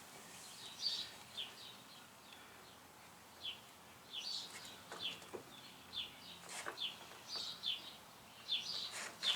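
Faint bird chirps in the background: short falling notes repeated every half second or so, with a couple of faint clicks among them.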